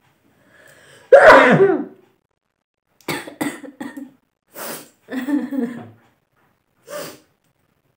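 A woman sneezes once, loudly, about a second in, after a brief intake of breath. The sneeze is brought on by tickling the inside of her nose with a long blade of grass. Several short, quieter breathy vocal sounds follow.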